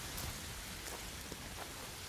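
Wind buffeting the microphone as a low, uneven rumble under a steady hiss, with a few faint crunches of footsteps on a pebble and gravel beach.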